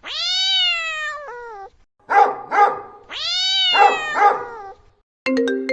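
A cat meowing in a pattern that plays twice: one long meow falling in pitch, then two short calls. Near the end, an iPhone ringtone melody of clear stepped notes begins.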